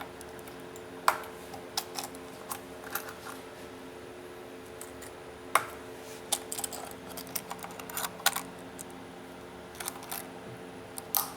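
Scattered sharp clicks and light gritty scrapes as a glass phone screen is pressed and locked down onto the heated plate of an LCD screen-separator machine. The grit sounds are a sign of debris on a dirty hot plate. A steady low hum from the machine runs underneath.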